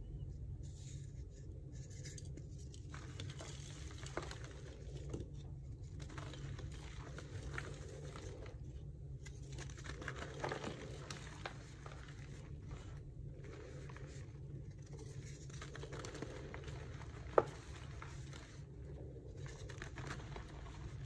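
Blocks of dyed gym chalk being crushed and crumbled between bare hands: irregular soft crunching and dry powdery rustling, with one sharp click about seventeen seconds in.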